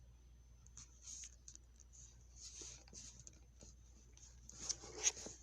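Faint tapping and scratchy handling noises of a device being operated, with two sharper clicks near the end.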